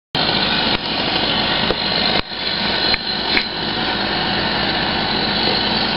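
Chainsaw running steadily as it cuts into a tree being felled, with a brief dip in its sound about two seconds in.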